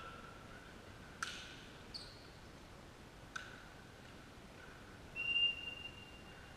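Referee's whistle blowing one steady high note for over a second near the end, the signal for the next serve. Before it come two sharp knocks and a brief high squeak.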